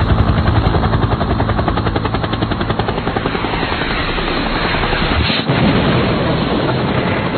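Helicopter rotor sound effect: a loud, rapid, even chopping of rotor blades.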